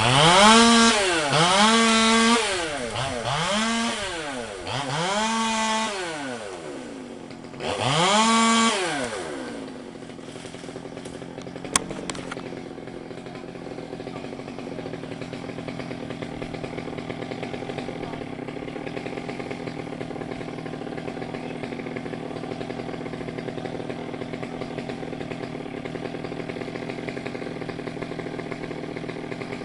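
Two-stroke chainsaw revved up and down about five times, then dropping to a steady idle about ten seconds in.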